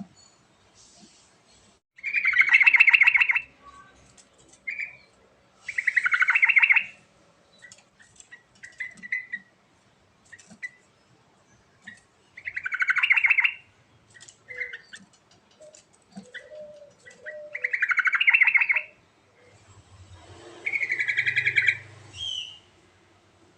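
Yellow-vented bulbul singing: five loud, bubbling phrases of about a second each, a few seconds apart, with short chirps in between.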